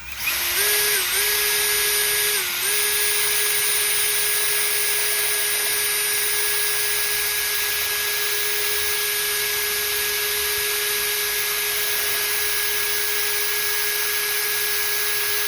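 A small electric motor running at a steady high whine over a rush of hiss. Its pitch dips briefly twice in the first few seconds, then holds until it cuts off abruptly.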